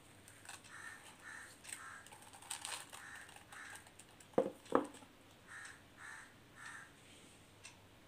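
Wet, coarse crystals crunching and squishing as a hand squeezes and kneads them in a plastic tub, in soft repeated crunches. About halfway through come two loud, short sounds falling in pitch, half a second apart.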